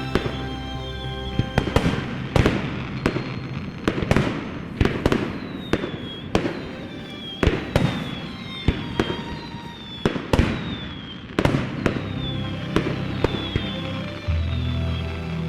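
Fireworks going off in rapid, uneven volleys of sharp bangs, with music playing underneath; a deeper bass line joins the music near the end.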